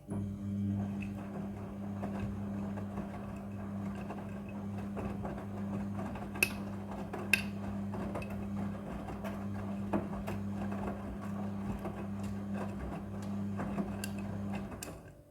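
Midea front-loading washing machine running a wash cycle: a steady motor hum with scattered clicks and knocks from the tumbling load and drum, a couple of sharper knocks near the middle.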